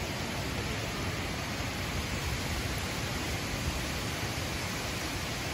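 Heavy thunderstorm rain falling steadily: a dense, even hiss.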